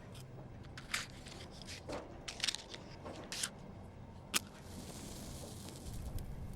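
Foley of a fire being laid and lit: a scattering of knocks and crackles from firewood being handled, the sharpest about two-thirds through, then a steady soft hiss as the fire takes.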